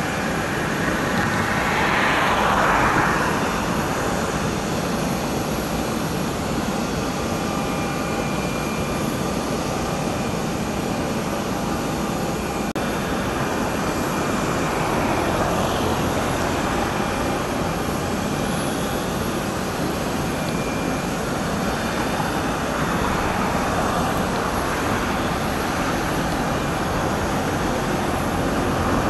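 Airliner jet engines running, a steady noise with a faint high whine held through it, a little louder about two to three seconds in.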